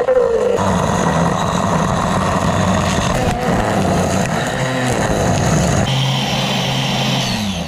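Handheld angle grinder with a wood-carving disc running under load as it grinds out the wood inside a tree hollow. Its pitch shifts as it bites, and it winds down near the end.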